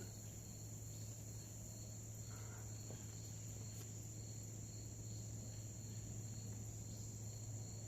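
Faint, steady chorus of insects: a continuous high-pitched drone with a low, even hum beneath it.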